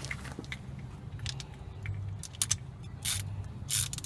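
Light metallic clicks and rattles of a brake caliper, its slide-pin bolt and hand tools being handled, with two short scrapes about three seconds in, over a steady low hum.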